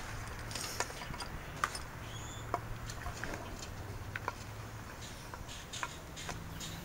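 Scattered light clicks and taps of small parts being handled, over a low steady hum that stops about five seconds in.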